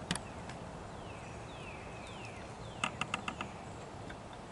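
A quick run of about six sharp clinks in half a second, a little past the middle, from climbing gear (a climbing stick and carabiner) being handled. Before it come a few short falling bird chirps.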